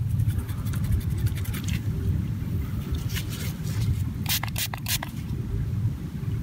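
Gloved fingers rubbing and scraping dirt off a freshly dug Indian Head cent to bring out its date, under a steady low rumble. A quick cluster of short, sharp scratchy sounds comes about four and a half seconds in.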